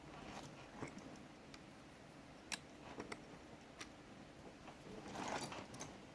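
Scattered light clicks and taps of small metal lock parts and tools being handled, the sharpest about two and a half seconds in, with a short scrape or rustle about five seconds in.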